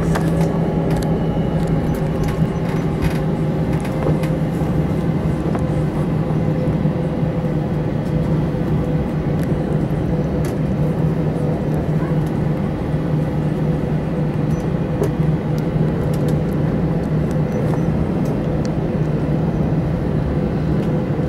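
Airbus A321 cabin noise while taxiing: the steady hum of the jet engines at low taxi power with cabin air, holding an even pitch throughout, with a few faint clicks and rattles.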